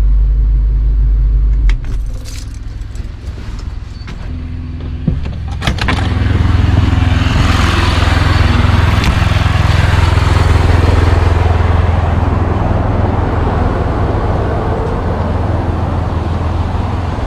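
Motorhome engine idling, switched off at the ignition key about two seconds in. Key and door clicks follow. From about six seconds in, another engine runs loud and steady with a hiss over it.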